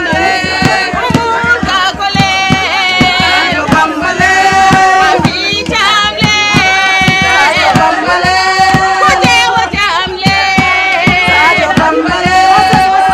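A woman singing in long held lines over a steady percussion beat of about four strokes a second.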